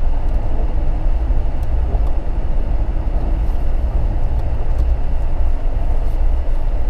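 Car driving on a snowy mountain road, heard from inside the cabin: a steady, deep engine and tyre rumble.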